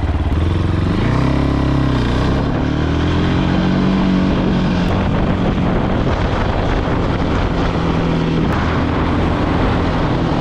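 Fantic Caballero 500 scrambler's single-cylinder engine pulling away: it revs up, changes gear about two and a half seconds in, then runs at a steady road speed with another gear change near the end, with wind noise across the microphone.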